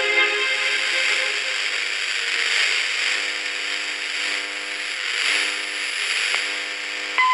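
Shortwave radio reception: a steady hiss of static with faint music held underneath, and a short high beep starting right at the end.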